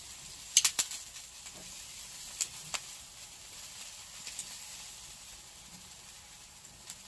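Pork belly and neck sizzling over a charcoal fire: a steady hiss broken by sharp pops of spitting fat or crackling coals, a quick cluster about half a second in and two more around two and a half seconds.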